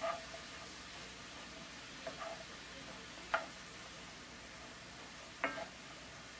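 Wooden spoon stirring onions and mushrooms sautéing in a skillet, knocking against the pan about four times with a short ring, over a faint steady sizzle.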